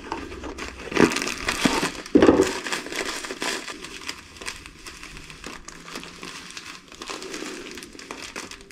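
Plastic packet of breadcrumbs crinkling as it is opened and handled, with louder rustles about one and two seconds in, then softer steady crackling.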